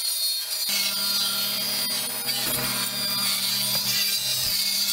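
Table saw ripping a weathered barn-wood board along the fence, a steady, loud whine of the blade cutting.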